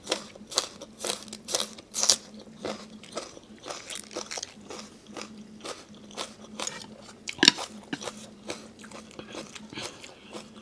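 Close-miked chewing with crunchy bites, about two a second at first, with one louder bite about seven and a half seconds in.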